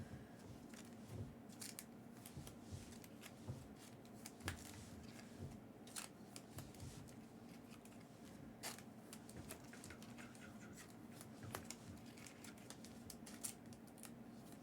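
Faint, scattered clicks and short scrapes of trading-card packaging and cards being handled, over a faint steady hum.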